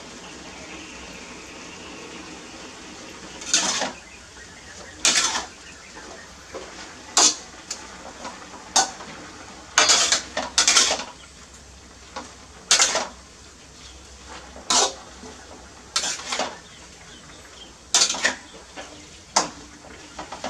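A metal spatula clanks and scrapes against a steel wok as green vegetables are stir-fried. There are about a dozen sharp clatters at irregular intervals, starting a few seconds in, over a steady faint hiss.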